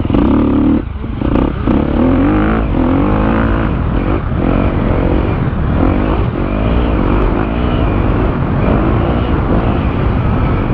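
250cc KTM motocross bike's engine heard from the rider's helmet camera, revving hard, its pitch climbing and falling again and again as the throttle opens and the gears change. The throttle closes briefly about a second in before it pulls again.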